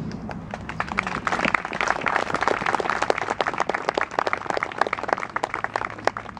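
Audience applauding: a small crowd's clapping, with separate claps standing out, swells about a second in and thins out near the end.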